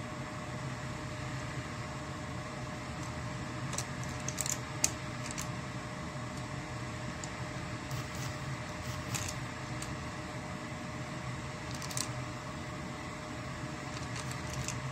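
A steady machine hum, with scattered light clicks of clam shells being set into a glass bowl of beaten egg. The sharpest click comes about five seconds in.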